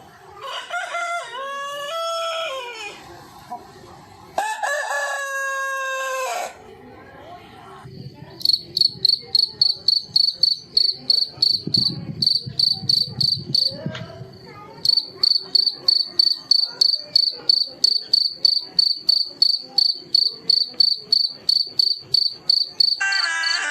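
A rooster crows twice, the first crow rising then falling and the second held level. Then a cricket chirps in a fast, even pulse of about three to four chirps a second, with one short break partway through.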